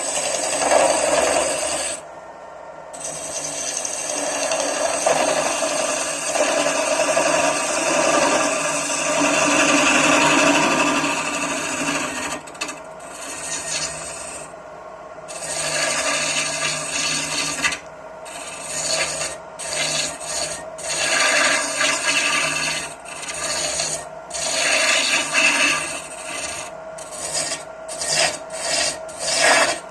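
Wood lathe running while a tool scrapes against the spinning wood, a steady rasping sound with a constant hum under it. The scraping breaks off briefly several times, more often in the second half.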